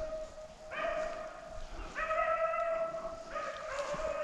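A rabbit hound baying in long drawn-out bawls, three notes about a second long following one another, typical of a hound running a rabbit's trail.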